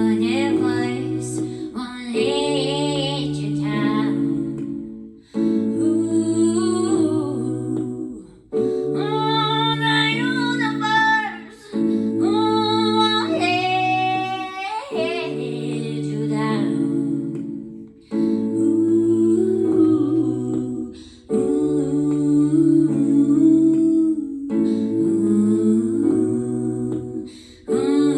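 Music: a woman's wordless singing, in phrases of a few seconds, over held chords that change every three to four seconds.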